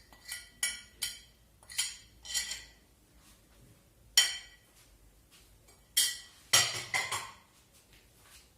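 A spoon clinking against a bowl while a spiced herb marinade is mixed. There are about ten irregular clinks: a run of them early, a loud single one near the middle, and a quick cluster in the last third.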